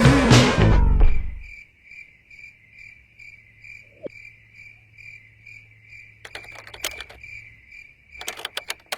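Music cuts off about a second in. A high, evenly pulsing chirp then repeats about twice a second, with clusters of sharp clicks near the end.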